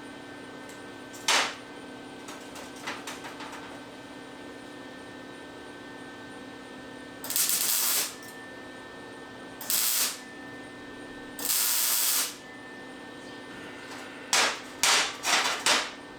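Short bursts of MIG welding on stainless steel: a single quick tack, three longer half-second-to-one-second passes in the middle, and four quick tacks in a row near the end, over a steady welder hum.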